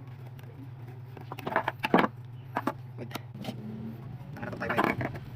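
Scattered sharp clicks and knocks, clustered about a second in and again near the end, over a steady low hum.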